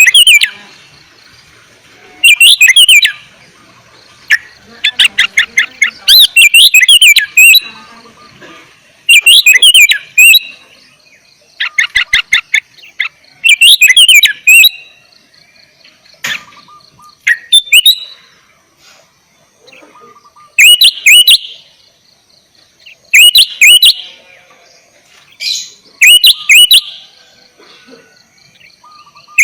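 Sooty-headed bulbul singing loud, bubbling song phrases about a second long, repeated every two to three seconds; some phrases are a rapid stutter of quick notes.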